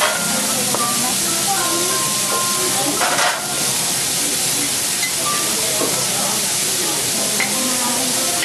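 Kobe beef steak sizzling steadily on a hot teppanyaki steel griddle. A brief louder clatter of a utensil against the griddle comes about three seconds in.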